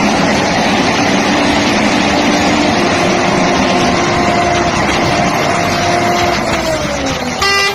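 Heavy trucks running close by: a loud, steady mix of engine and tyre noise with a droning hum that drops in pitch near the end.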